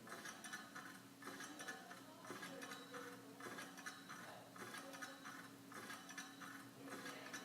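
Ceiling fan running: a steady low motor hum with a soft tick repeating about twice a second as the blades turn.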